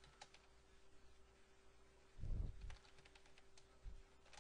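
Faint, scattered keystrokes on a computer keyboard as a line of code is typed, with a low thump a little past halfway and a faint steady hum underneath.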